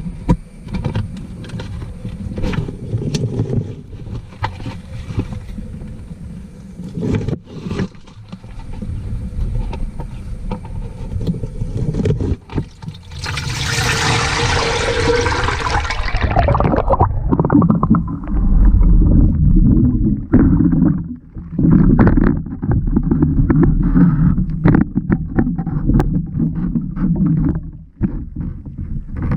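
Water sloshing and knocking against a GoPro as a fish trap with the camera inside is lowered into a river; about halfway through, a hissing, bubbling rush as the camera goes under, then a muffled underwater rumble with scattered clicks and knocks.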